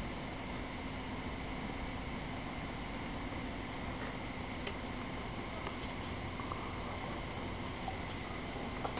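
Night insects chirping in a steady, rapid, even pulse, about five chirps a second, over a faint low hum.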